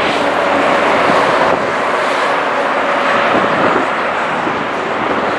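Steady, loud rushing noise of city traffic with a faint low hum running under it.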